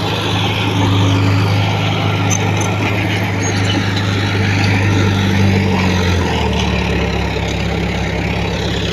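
Heavy earthmoving machine's diesel engine running steadily under load, its pitch dropping a little about six seconds in.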